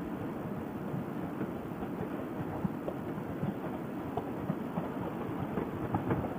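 Riding noise of a motorcycle on the move, heard from the rider's helmet: a steady rough rumble of wind and road/engine noise, with no clear changes.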